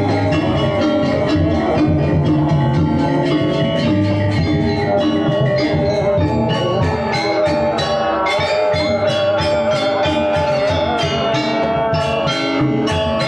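Balinese gamelan ensemble playing, its bronze metallophones struck in dense, quick runs of notes over sustained ringing tones.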